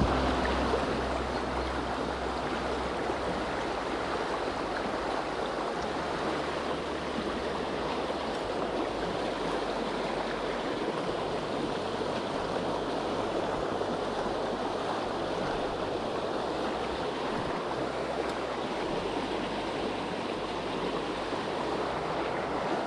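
Steady rush of a small river's flowing water, even and unbroken.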